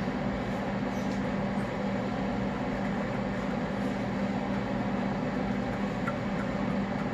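Microwave oven running while it cooks, a steady hum with a low electrical drone and the whir of its fan.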